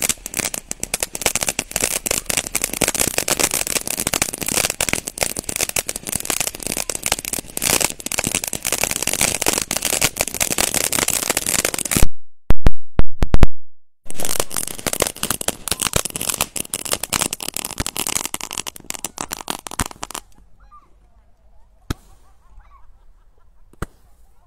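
Ground fountain fireworks spraying sparks with a dense, continuous crackle, broken about halfway by a few very loud cracks. The crackle stops about 20 seconds in, leaving a faint hiss and two sharp pops near the end.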